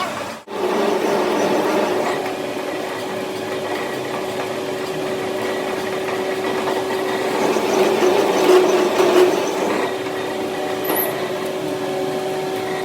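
A workshop machine running with a steady hum and a scraping working noise over it, which grows louder about eight to nine seconds in. The sound cuts out sharply for a moment about half a second in.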